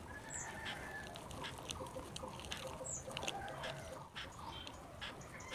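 Faint scattered ticks and rustles of clay soil being crumbled off adenium roots by hand and dropping into a plastic bowl. Birds chirp briefly, twice high up, about half a second and three seconds in.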